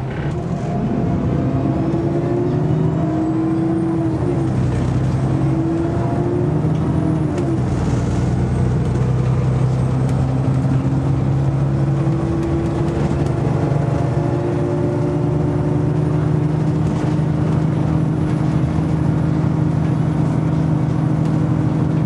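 Alexander Dennis Enviro400 bus with Voith automatic gearbox, heard from inside the passenger saloon as it pulls away. The engine note climbs, drops about four seconds in, climbs again and drops near eight seconds as the gearbox shifts up, then settles into a steady drone at cruising speed, with a thin high whine above it.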